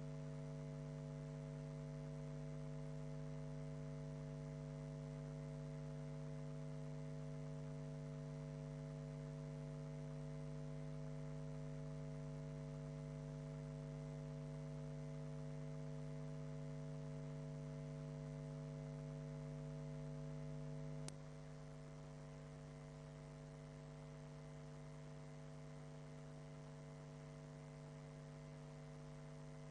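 Steady, low electrical mains hum with a buzzy edge and no speech. About two-thirds of the way through comes a single sharp click, after which the hum runs on slightly quieter.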